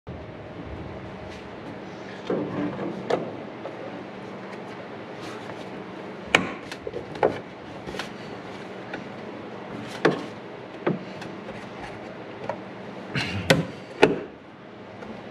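Plastic fuse/relay box cover being handled and pressed into place by hand: a run of sharp clicks and knocks, with a cluster a couple of seconds in and two loud snaps near the end, over a low steady hum.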